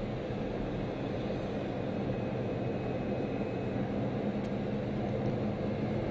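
Bugatti Veyron being driven on the road, heard from inside the cabin: a steady mix of its quad-turbocharged W16 engine with tyre and wind noise, holding an even level throughout.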